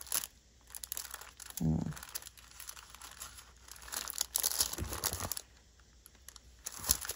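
Rustling and crinkling in irregular bursts as hands handle a paper envelope journal and a lace-and-fabric flower embellishment against it. A brief low hum comes about a second and a half in.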